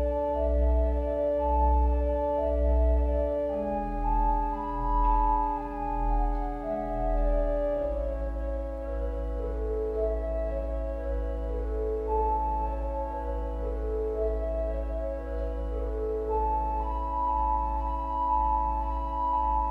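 Church organ playing a slow line over sustained chords. A deep pedal bass sounds in repeated notes about once a second for the first eight seconds or so, then holds one long low note.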